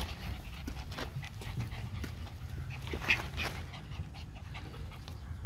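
Labradoodle puppies panting, with scattered short taps and scuffs.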